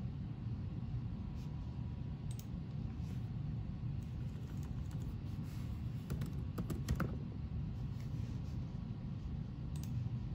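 Typing on a laptop keyboard: a quick run of key clicks about six to seven seconds in, with a few single clicks earlier, over a low steady hum.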